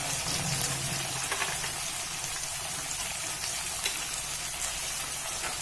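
Chopped onion and freshly added tomato sizzling in hot oil in a kadhai: a steady, even hiss.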